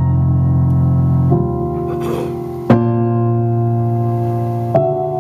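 Digital piano playing slow, sustained chords, with a new chord struck three times: about a second in, nearly three seconds in (the loudest), and near the end.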